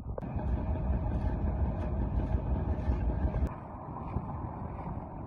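Engine of a concrete machine running steadily on a building site, its heavy low running sound easing off about three and a half seconds in.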